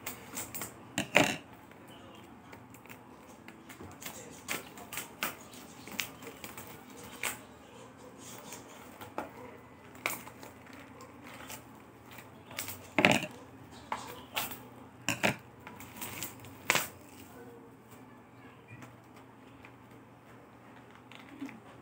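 A cardboard box of Sante Barley being handled and opened by hand: irregular clicks, taps and crackles of cardboard and its wrapping. The loudest snaps come about a second in and again about 13 seconds in.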